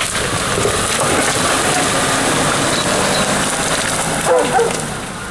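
Lifted Mercedes G-Class off-roader on oversized mud tyres crawling through fallen branches and brush: the engine runs under load over a dense crackle of twigs and branches snapping and scraping under the tyres and bodywork. A brief voice-like cry stands out about four seconds in.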